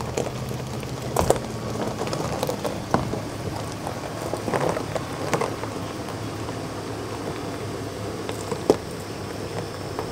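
2003 Chevrolet Silverado 1500 pickup creeping forward at idle, its tyres crackling and popping over gravel and dry dirt over a steady low engine hum.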